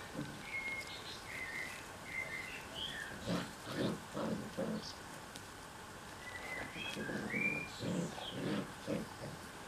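Puppies grunting and growling in short bouts as they wrestle in play. A bird sings short warbled, pitch-gliding phrases in the background.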